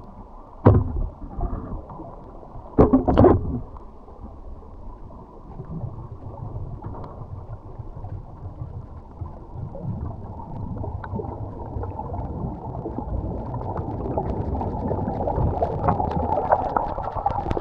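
Underwater sound of a scuba diver ascending: two loud gushes of exhaled regulator bubbles near the start, the second lasting under a second. Then a steady rushing of water that grows louder toward the end.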